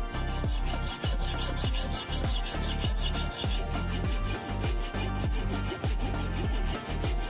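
Hacksaw blade rasping back and forth against the steel shell of a spark plug clamped in a vise, metal scraping metal in quick even strokes, several a second.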